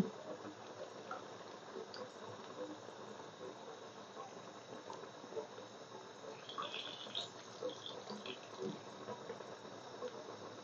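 Samosas deep-frying in hot oil in a pan: faint sizzling with scattered small crackles.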